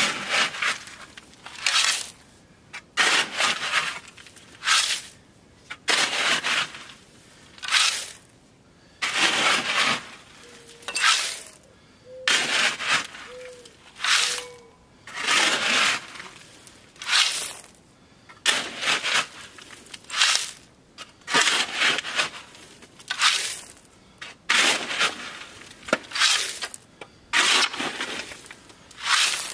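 Crushed gravel being scraped and raked with a long-handled hand tool, in repeated strokes about once every second or so, as the gravel pad is spread level.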